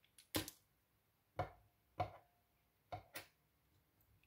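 Small sharp clicks of steel tweezers and tiny brass lock pins tapping against a wooden pin tray as a lock cylinder is taken apart. About six quick ticks, a couple of them followed by a brief faint metallic ring.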